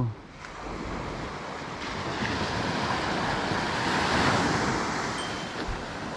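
Ocean surf washing in: a wave's rushing noise swells to a peak about four seconds in, then fades.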